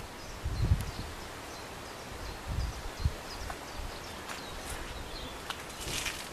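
Outdoor ambience: scattered faint bird chirps over a steady low background hiss, with a few low thumps, the loudest about a second in.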